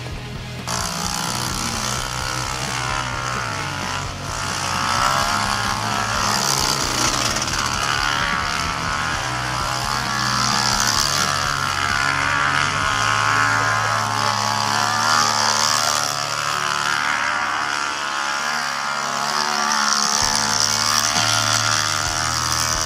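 Quad (ATV) engine running while riding over rough dirt tracks, its pitch wavering up and down. Background music with a stepping bass line plays along with it.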